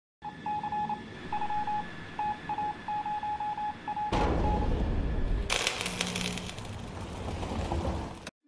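Electronic beeps in short uneven groups, all at one pitch, over a light hiss, like a radio signal. About four seconds in, a louder rushing noise takes over. It turns harsh and crackly and cuts off suddenly just before the end.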